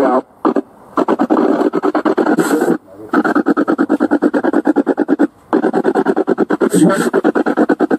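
Spirit box sweeping through radio stations, a fast stutter of static and broken-off broadcast fragments at about ten chops a second, with a few brief drop-outs. A fragment at the start is read as the word "shout".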